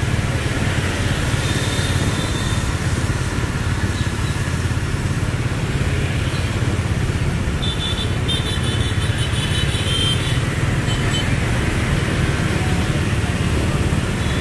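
Steady hum of motorbike traffic riding past on a wet street. A brief high-pitched tone sounds near the start, and a longer set of high tones comes about halfway through.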